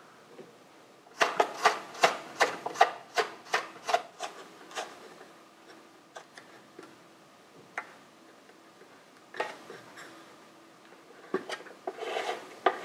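A hand tool worked back and forth in rasping strokes on a workpiece: a quick run of about a dozen strokes, roughly three a second, then a few separate clicks and knocks and two shorter rasping bursts near the end.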